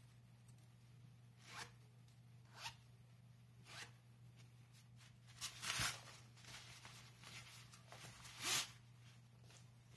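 Water-resistant drawstring backpack's synthetic fabric rustling and swishing as it is handled, in short brushes a second or so apart, the loudest about six seconds in and near the end, over a faint steady hum.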